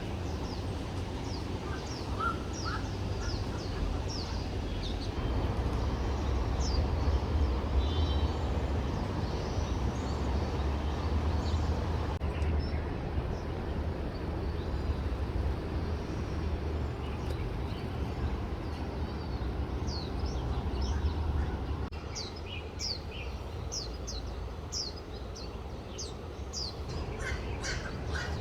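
Small birds chirping in many short, high calls, over a steady low rumble and hiss of outdoor background noise.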